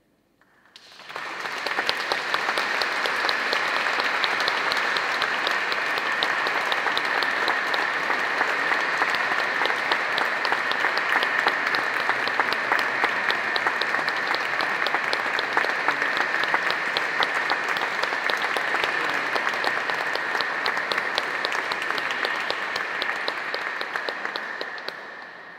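Audience applauding: clapping starts about a second in, holds steady, and dies away near the end.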